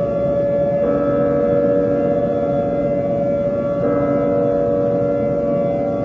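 Mock emergency-alert siren: a loud, steady chord of tones that steps to a different pitch about every three seconds, warning of a nuclear attack.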